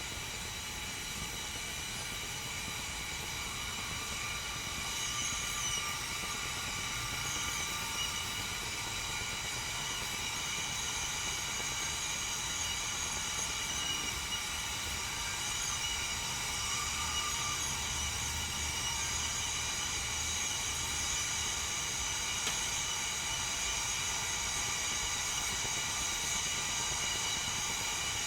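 Tea kettle heating water, not yet at the boil: a steady hiss with a faint low rumble, slowly growing louder.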